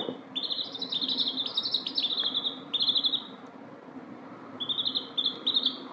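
Domestic chicks peeping: quick runs of high cheeps, each falling in pitch, with a pause of about a second and a half in the middle.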